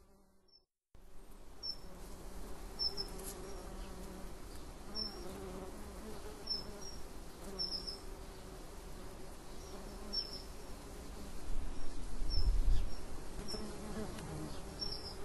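Buzzing insect drone, wavering around one low pitch, with short high chirps at irregular moments. It starts about a second in, after a brief silence.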